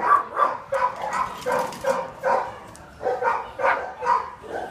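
A dog barking over and over, about two or three short barks a second, with a brief pause about three seconds in.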